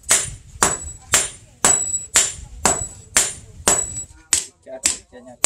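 Hand hammers striking red-hot chainsaw guide bar steel on a steel post anvil in a steady forging rhythm of about two blows a second, each blow a sharp clang with a short high ring.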